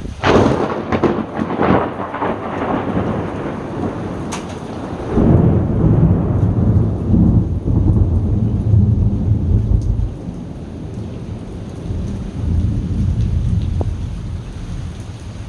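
Thunder during a rainstorm: a sharp crackling clap right at the start, then a long low rumble from about five seconds in that fades slowly near the end. Steady rain falls throughout.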